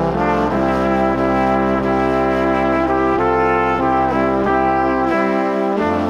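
Background music: a slow melody over held chords, the notes changing every second or so, with the bass shifting near the end.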